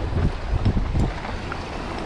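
Wind buffeting the microphone in uneven low gusts, over waves washing against shoreline rocks.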